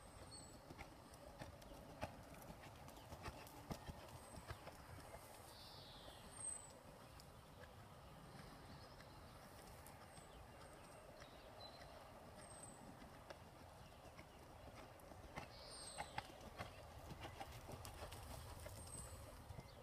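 Faint hoofbeats of a horse cantering on a sand arena, growing louder near the end as the horse passes close by.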